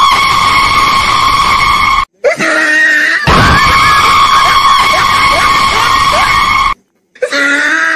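A loud, long scream held on one high pitch. It cuts off abruptly about two seconds in, a shorter wavering cry follows, and then the held scream comes back until it cuts off near the end.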